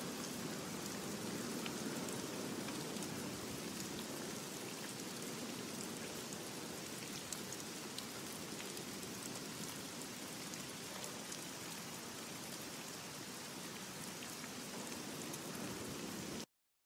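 Steady rain-like hiss with scattered small ticks of drops, cutting off abruptly near the end.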